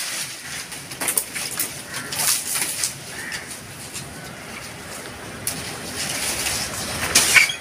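Leaves rustling and wood cracking as a leafy guava branch is pulled down and broken off by hand. There are several short bursts, the loudest near the end.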